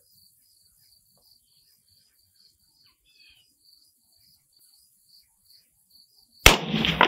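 Faint insects chirping in a quick steady pulse, then about six and a half seconds in a single sharp rifle shot from a Galil DMR in 6.5 Creedmoor, its report echoing out afterwards.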